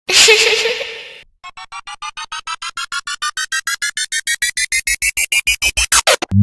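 Editing sound effects: a short noisy hit with a brief held tone, then a string of short synthesizer beeps that speed up and climb in pitch for about five seconds, like a charging-up riser, ending in a quick sweep.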